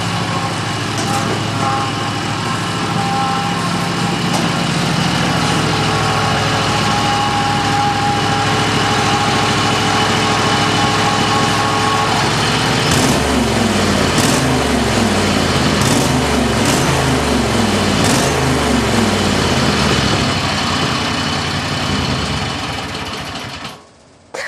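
Riding lawnmower engine running steadily; about halfway through its pitch starts to waver up and down, with a few sharp knocks. It cuts off abruptly just before the end.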